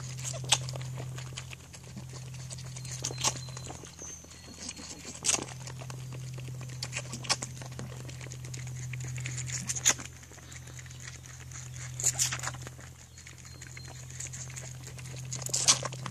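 Young kid goat suckling milk from a baby bottle: wet sucking and smacking, with a sharp smack every two seconds or so, over a steady low hum.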